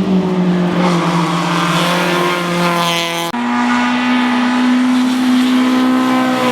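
Hill-climb race car engine running hard at high revs, its pitch held nearly steady and sagging slightly; about halfway through it switches abruptly to a steady, somewhat higher pitch.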